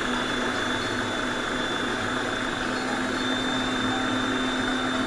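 Electric stand mixer running steadily at speed 3 with its wire whisk, beating eggs with powdered sugar: an even motor hum with a faint high whine.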